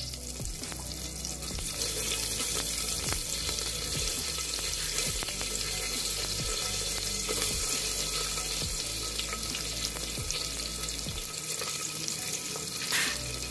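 Sliced onions sizzling in hot ghee with cumin seeds in a pressure cooker: a steady frying hiss with many small scattered crackles.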